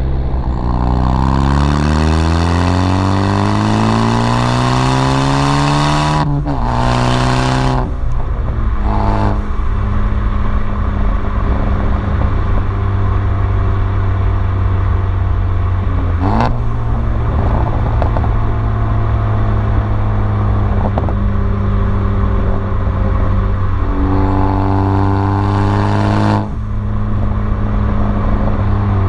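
Ford Focus ST turbocharged four-cylinder with muffler and resonator deleted, accelerating through the gears: the exhaust note climbs in pitch for about six seconds, then drops on lift-off with a loud hiss from the Turbosmart blow-off valve venting. It then cruises at a steady pitch, revs up again near the end and lifts off with a second blow-off hiss.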